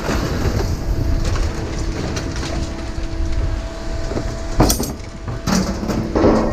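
A vehicle towing a trailer running with a steady low rumble and a constant rattle, with two louder clanks about four and a half and six seconds in.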